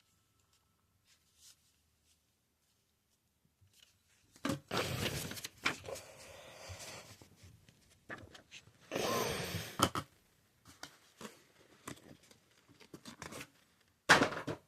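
Packaging being rustled and torn in two bursts, about four and nine seconds in, with scattered clicks of handling in between.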